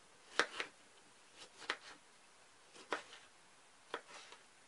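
Kitchen knife dicing a tomato on a plastic cutting board: four sharp taps of the blade hitting the board about a second apart, with softer cuts between.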